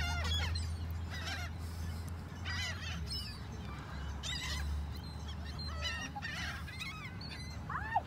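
Flock of gulls calling overhead while being fed, short cries repeating every second or so, over a steady low rumble.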